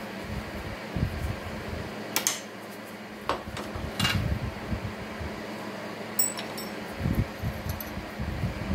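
Sharp metallic clinks and taps of steel tooling being handled on a metal lathe, a few separate strikes with one ringing clink about six seconds in, over a steady low hum.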